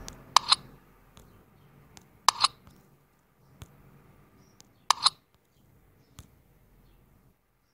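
Computer mouse clicking: three sharp paired clicks about two seconds apart, with a few fainter single ticks between them.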